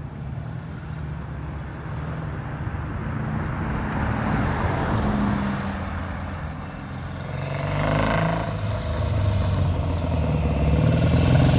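A van drives past, its road noise swelling and fading. Then a 1958 Norton Dominator Model 99's parallel-twin engine approaches, growing louder toward the end.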